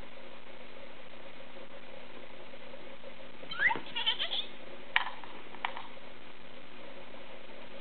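Baby's high-pitched squeals and vocalising, a rising squeal then a few short squeaks, starting about halfway in, over a steady low hum.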